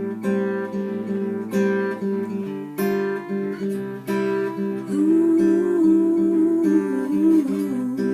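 Acoustic guitar strumming chords in an instrumental break, with a held, wavering melody line coming in over the chords about five seconds in.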